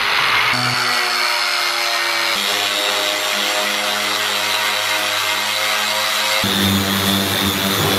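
Angle grinder with a sanding disc running against a sheet-steel cabinet top, stripping off old paint and rust: a steady loud motor whine over the rasp of the disc. The pitch shifts twice, about two and a half seconds in and again near six and a half seconds.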